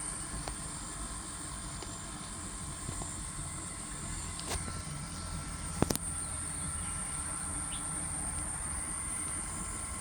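Daikin ductless mini-split air conditioner running with a steady low hum, a thin high-pitched whine and fainter steady tones, with a couple of short clicks around the middle.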